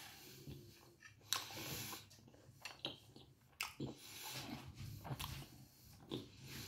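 A person chewing a mouthful of bread close to the microphone, with wet mouth sounds coming in irregular bursts.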